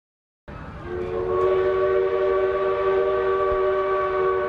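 A locomotive's multi-tone horn sounding one long held chord, starting about a second in over a low rumbling noise.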